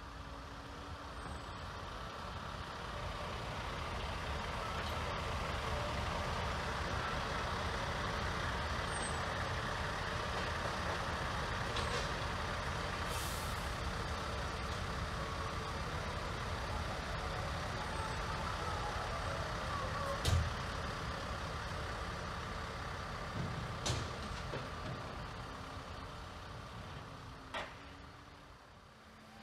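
Heavy truck engine running, its rumble building over the first few seconds, holding, and fading near the end. A few sharp knocks stand out, the loudest about twenty seconds in.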